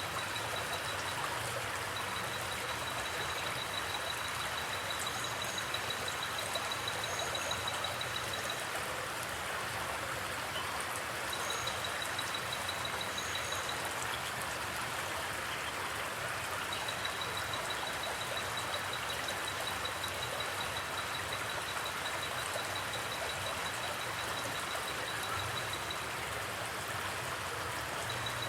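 Forest creek flowing steadily, a continuous rush of running water. Over it, a high, rapid trill repeatedly starts and stops, and a few faint short chirps sound in the first half.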